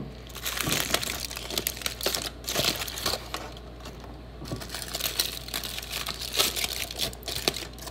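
Aluminium foil being unwrapped and crumpled by hand, with irregular crinkling and crackling.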